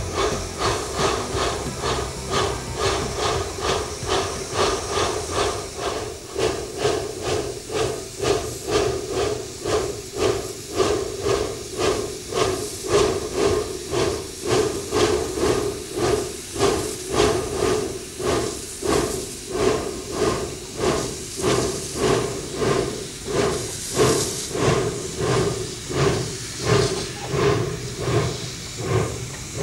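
Narrow-gauge steam locomotive working slowly, with a steady, regular beat of exhaust chuffs over continuous steam hissing. A louder burst of hissing steam comes near the end.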